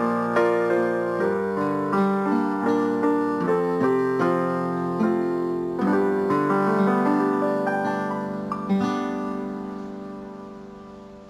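Slow, gentle piano music, notes struck one after another, ending on a last chord that slowly fades out near the end.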